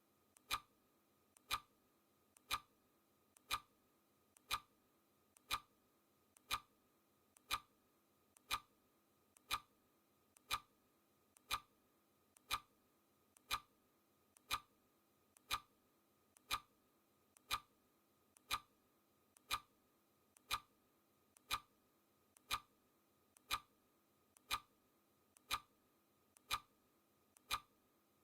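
Clock ticking sound effect: sharp, even ticks at a steady rate of about one a second.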